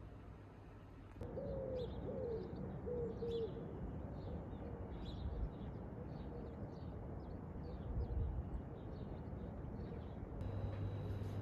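Birdsong: a dove coos a few times about a second in, over steady chirping from small birds.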